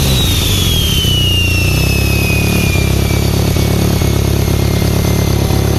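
Turbocharged Nissan KA24DE four-cylinder settling from a rev into a steady idle. A thin high whine falls steadily in pitch over the first three or four seconds as the turbo spins down.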